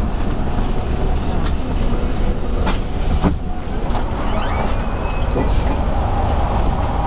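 Inside a moving city bus: steady engine and road rumble, with a few knocks and rattles and a brief high squeal a little past the middle.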